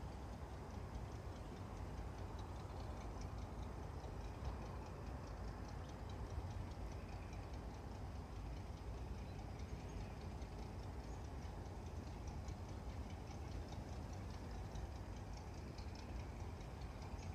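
Diesel locomotive rumbling low and steady in the distance, with a rapid, even high ticking over it.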